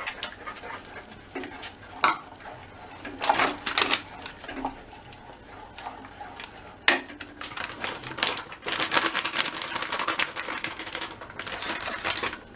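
Wooden spatula stirring and scraping in a kadhai (Indian wok), mixing milk powder into milk so no lumps form. A few separate knocks come first, then rapid, continuous scraping strokes from about seven seconds in.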